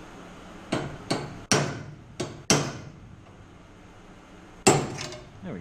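Sharp hammer strikes on metal, each with a short ring, knocking a drilled-out rivet from a steel L bracket on the aluminium airframe: five quick blows in the first few seconds, then one more after a pause.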